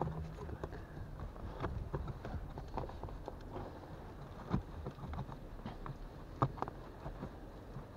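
Irregular small clicks, knocks and rustling as a pleated cabin air filter is jiggled up and down and seated in its plastic housing, with two sharper knocks partway through.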